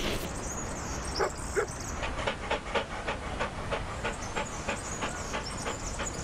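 A dog panting: quick, even breaths, about four a second, starting about a second in, over a steady hiss.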